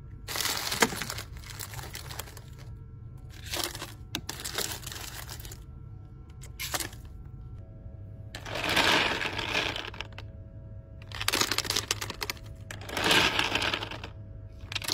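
Pick-and-mix candies tipped from a plastic scoop into a cup in about six separate bursts. Chocolate buttons, wrapped sweets and chocolate balls clatter and rustle onto the pile, over a steady low hum.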